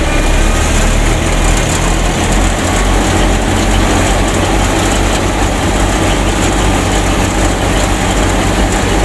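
Small motor driving a model wheat thresher through a tractor PTO shaft and belt pulleys, running steadily with a low hum under a dense whirring noise.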